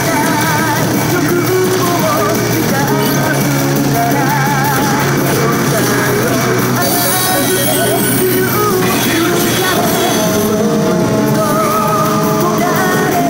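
Toyomaru P Road Pharaoh seven-segment pachinko machine playing its loud electronic music and warbling sound effects without a break.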